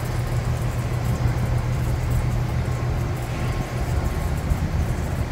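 Steady low mechanical hum over a constant background noise, with no change in level or pitch.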